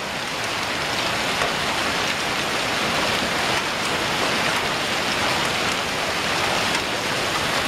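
Heavy rain mixed with hail pouring down onto pavement and roofs: a dense, steady hiss with faint scattered ticks, growing a little louder over the first second or two.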